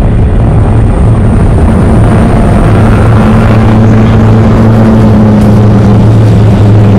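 High-horsepower catamaran powerboat engines running hard at high speed, heard from aboard, with a rushing wind-and-water noise. The deep, steady drone rises a little in pitch about three seconds in and eases back near the end.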